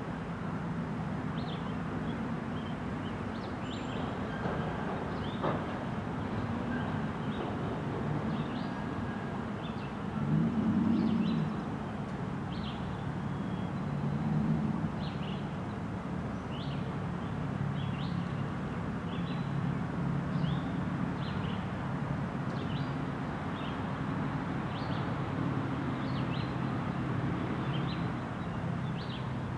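Freight train of double-stack container cars rolling past at steady speed: a steady rumble of wheels on rail, swelling briefly about ten seconds in. Short high chirps sound over it about once a second.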